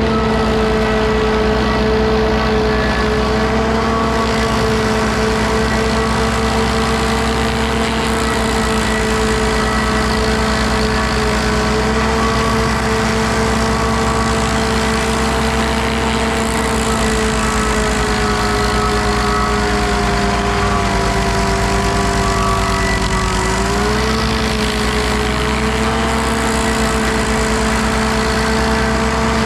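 A work machine's engine running steadily, its pitch sagging briefly about three-quarters of the way through and then recovering.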